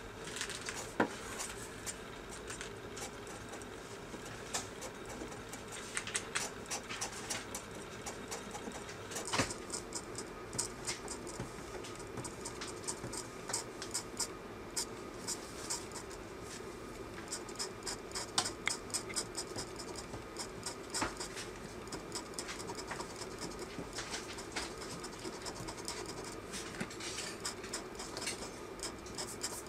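Craft-knife blade cutting and scratching screentone on a manga page: irregular runs of short, quick scrapes with brief pauses, over a low steady hum.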